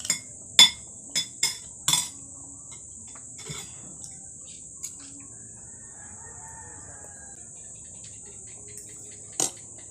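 A rooster crowing faintly about halfway through, over a steady high drone of insects. A few sharp clinks, like utensils on dishes, in the first two seconds and one more near the end.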